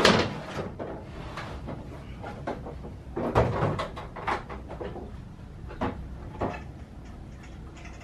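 Scattered knocks and clicks of hands working at a car's plastic front slam panel, with a loud rushing sound that peaks at the very start and a cluster of louder knocks about three to four seconds in.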